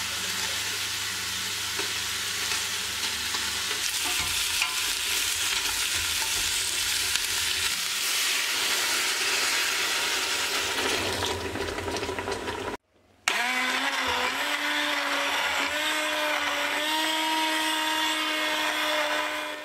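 Carrots, parsnips and potatoes sizzling in olive oil in a stainless pot, with water poured in over them. After a short silence, a stick blender runs in the soup, its motor whine rising briefly and then holding steady as it purées the vegetables.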